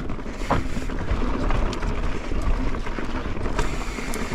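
Mountain bike rolling down a dry dirt singletrack: a steady rumble of tyres on dirt and air rushing past, with scattered short clicks and knocks from the bike and small stones.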